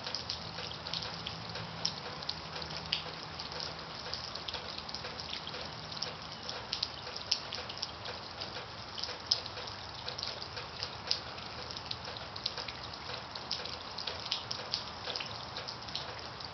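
Water dripping and pattering: many small, irregular drips over a soft steady hiss. A low hum underneath fades out about six seconds in.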